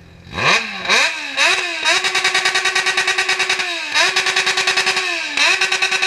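Yamaha XJ6 N's inline-four engine revved hard at full throttle for a decibel meter. It gives three quick rising blips, then holds at high revs for about two seconds at a time, with a fast stutter, dropping back briefly twice. The meter read 129.8 dB.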